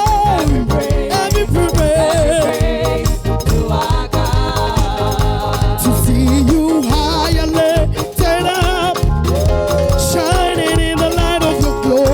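Upbeat contemporary gospel praise music: bass and drums keep a steady dance beat under voices singing a wavering melody.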